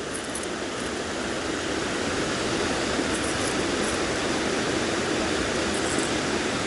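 Rushing river water: a steady, even rush of flowing water that grows a little louder over the first two seconds, then holds.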